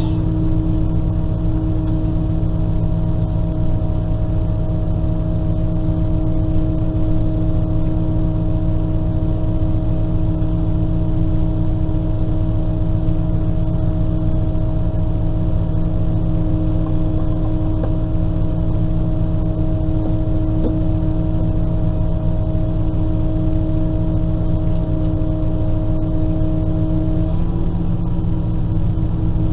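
X73500 diesel railcar idling while standing still, heard from the driver's cab: a steady hum made of several constant tones. Near the end the hum changes as one of its higher tones drops out.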